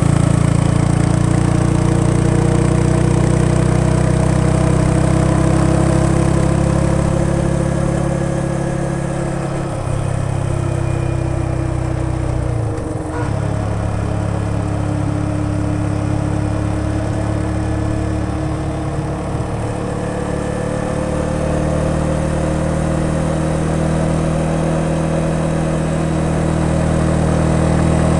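Yamaha XSR 155's single-cylinder four-stroke engine and exhaust running under way at a steady road speed, the note rising and falling gently, with two brief dips midway as the throttle eases.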